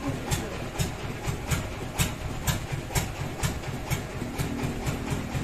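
An engine running steadily, a low chugging pulse with sharp ticks about twice a second; a faint steady hum joins in near the end.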